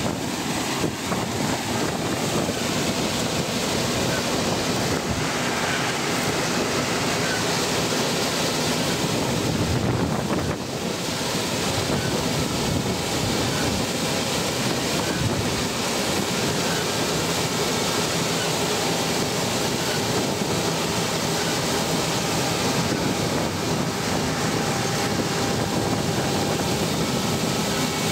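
Laverda M310MCS combine harvester running steadily under load while harvesting barley: engine and threshing machinery, with wind buffeting the microphone.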